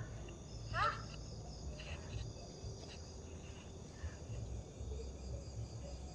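Night insect chorus, crickets trilling steadily in several high pitches, with one short chirping call about a second in and a low rumble underneath.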